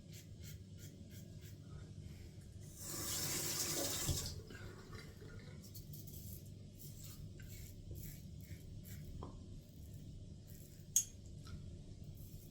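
Caveem safety razor (Gillette 7 o'clock green blade) scraping through lathered stubble in short, crisp strokes. About three seconds in comes a burst of running water lasting about a second and a half, and near the end there is a single sharp tap.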